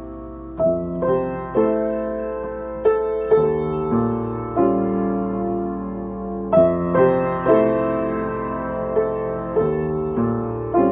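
Acoustic piano played with both hands: slow chords struck about once a second and left to ring.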